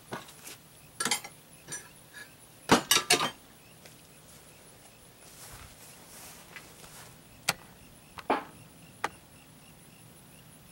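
Scattered sharp metal clinks and knocks as outboard lower-unit gearcase parts are handled and set down among tools on a workbench, loudest in a quick cluster about three seconds in, then a few single knocks later on.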